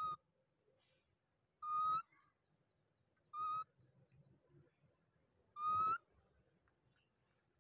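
A baby macaque giving four short, high, whistle-like coo calls, about two seconds apart, the last one rising at its end. These are the contact calls of an infant alone up a papaya tree that it can climb but not get down from.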